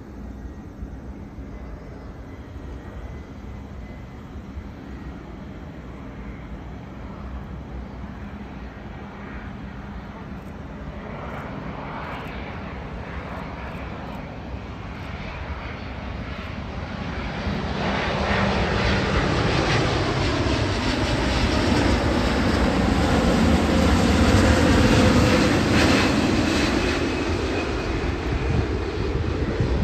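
Airbus A350's Rolls-Royce Trent XWB turbofan engines on final approach, growing louder as the airliner closes in and loudest about two-thirds of the way through. As it passes, the engine tones slide down in pitch.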